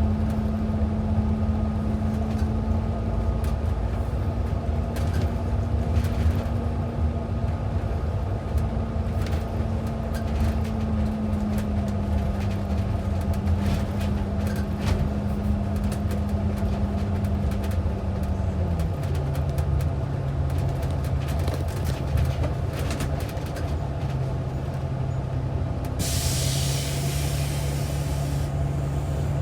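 City bus running, heard from inside the cabin: a steady engine drone whose pitch steps down about two-thirds of the way through, with a hiss of air lasting about two seconds near the end.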